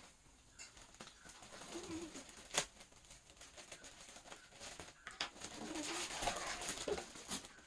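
Scissors snipping through a plastic courier mailer, with sharp clicks about two and a half and five seconds in, then the plastic bag rustling as a cardboard box is pulled out of it.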